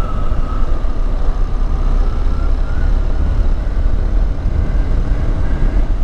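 Hero Xpulse 200T single-cylinder motorcycle running at steady riding speed, under heavy wind rumble on the microphone. A faint, thin high tone wavers slightly throughout.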